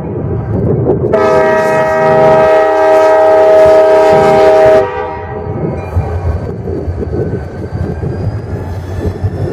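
Wheeling & Lake Erie locomotive 4003's air horn sounding one long blast of several notes at once, starting about a second in and cutting off about four seconds later. The passing train's rumble carries on after the horn stops.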